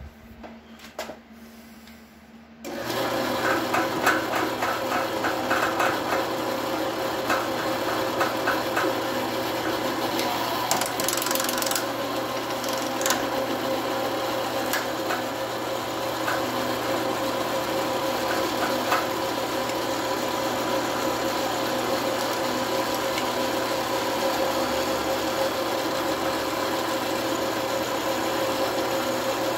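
Belt-driven drill press starts about three seconds in and runs steadily, turning a Tapmatic SBD-7 tapping head as it threads holes in a steel block. Irregular clicking runs over the motor for the first ten seconds or so.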